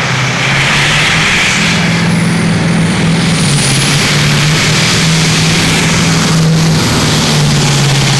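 Massey Ferguson diesel tractor running flat out under full load as it drags a weight-transfer pulling sled, a loud, steady engine note that holds pitch.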